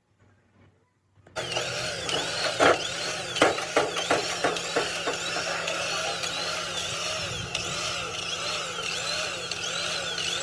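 A power tool running on metal starts abruptly about a second in, its pitch wavering in a steady cycle about one and a half times a second, with a few sharp knocks in the first seconds.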